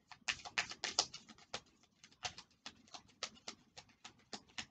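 A deck of oracle cards being shuffled by hand: a run of quick, irregular card snaps and flicks, about four a second, with a short pause about two seconds in.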